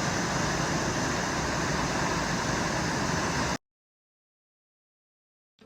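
Steady loud rushing noise with a low rumble underneath, which cuts off abruptly to silence about three and a half seconds in.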